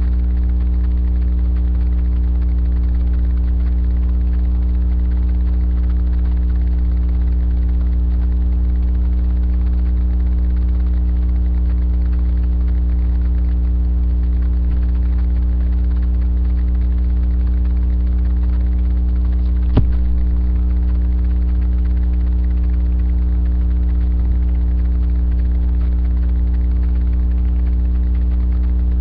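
Steady low electrical mains hum with a stack of higher overtones, unchanging throughout, with one sharp click about twenty seconds in.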